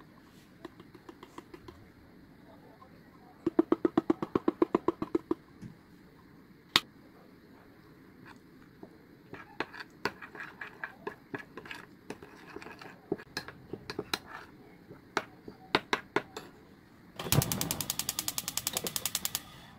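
A pepper shaker is shaken over a ceramic bowl in a quick run of rattling taps. Then a metal spoon clinks and scrapes against the bowl as thick chili sauce is stirred. Near the end comes the loudest part, a gas range's igniter ticking rapidly for about two seconds.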